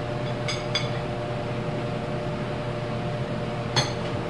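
Metal parts clinking as they are handled, with a bright ringing tone: two light clinks close together about half a second in, then a louder one near the end. A steady machine-like hum runs underneath.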